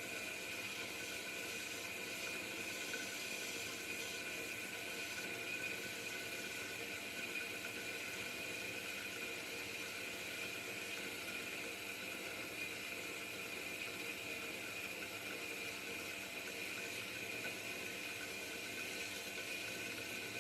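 Pilous semi-automatic metal-cutting bandsaw running steadily through a 5-inch solid round bar: a continuous hiss of the blade cutting, with a steady high whine over it.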